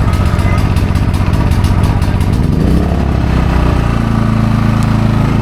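Portable generator engine running close by, rough and pulsing at first, then settling into a steadier, even hum about halfway through; it cuts off suddenly at the end.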